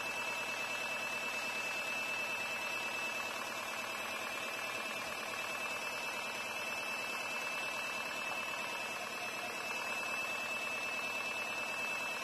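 Tamiya Spray-Work airbrush compressor running steadily, an even mechanical noise with a constant high whine.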